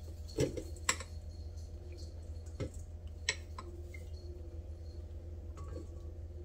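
A few light knocks and clicks as a small plastic bowl and a silicone spatula tap against a stainless steel mixing bowl while shredded cheddar is scraped in. A steady low hum runs underneath.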